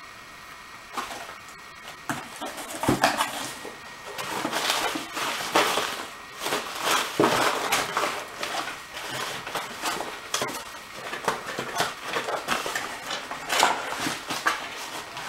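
Papers and packaging being handled and sorted on a table: irregular rustling with scattered clicks and light knocks.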